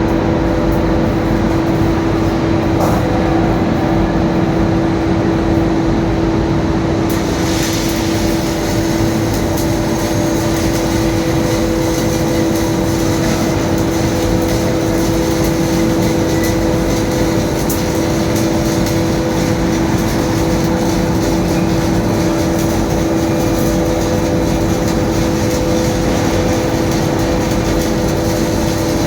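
Loud, steady heavy industrial machinery noise with a constant low hum; a higher hiss joins about seven seconds in.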